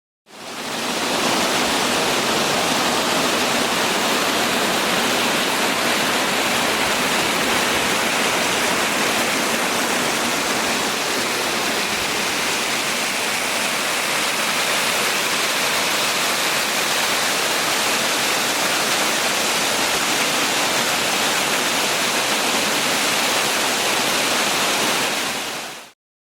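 A waterfall rushing steadily: an even hiss of falling water that fades in at the start and fades out shortly before the end.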